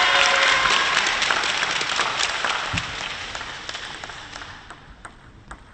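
Arena crowd applause, many hands clapping, dying away steadily until only a few scattered claps remain near the end.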